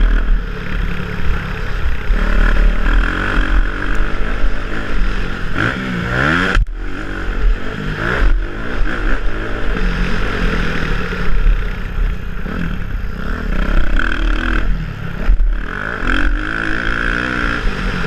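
Motocross bike engine revving hard and easing off as the bike is ridden round a dirt track. The engine pitch climbs steeply about six seconds in, drops out for an instant, and climbs again near the end.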